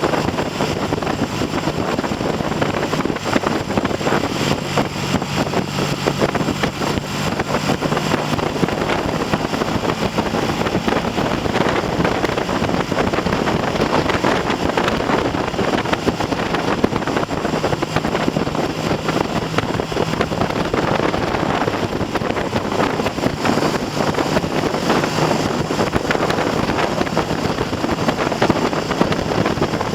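Heavy wind buffeting on the microphone of a moving motorcycle. Underneath it, the Triumph TR6's parallel-twin engine runs at a fairly steady note.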